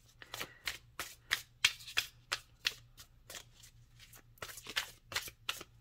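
A deck of tarot cards being shuffled by hand: a run of short, crisp card slaps, about three a second, with a brief pause partway through.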